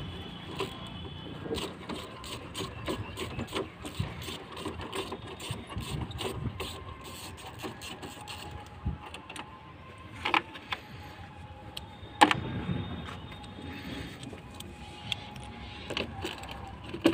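Hand socket ratchet clicking in quick runs as a bolt on a Mahindra Bolero's air filter housing is turned, with metal tool clinks and a couple of louder knocks in the second half.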